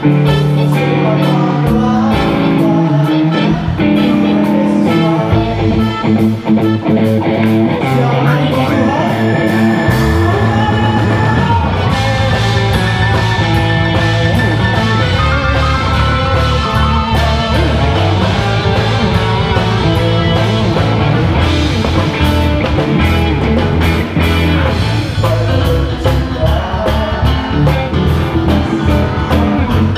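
Live rock-style worship band playing: electric guitars through Marshall amps, keyboard and drum kit. The low end grows fuller about ten seconds in.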